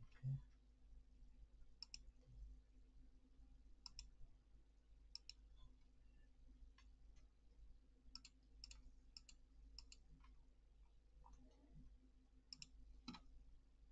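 Faint clicks of a computer mouse, irregular and many in quick pairs, with one low thump just after the start.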